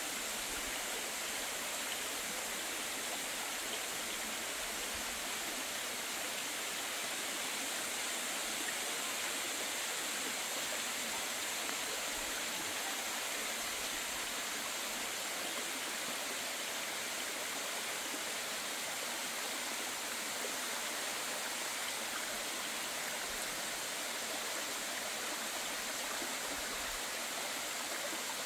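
Waimoku Falls' water plunging onto the rocks and running down the shallow stream below it: a steady, even rush.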